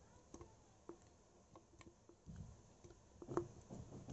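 Faint, sparse clicks and taps as mango pieces are dropped by hand from a plate into a mixer-grinder jar, with a soft thud a little after two seconds and the sharpest knock about three seconds in.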